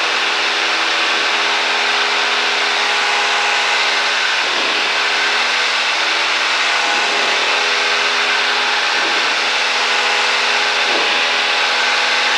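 Cessna 172's engine and propeller, a steady drone heard in the cockpit, with a constant hum of several even tones under a rushing noise, running at climb power.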